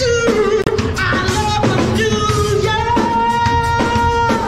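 Live street band: a woman singing into an amplified microphone over a drum kit, her line wavering at first and then settling into a long held note in the second half.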